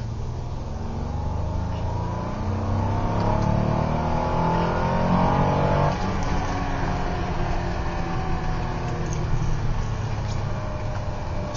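Alfa Romeo 164 QV's 3.0-litre 12-valve V6 accelerating, its pitch rising for about six seconds, then the revs drop abruptly and it runs on steadily at lower revs.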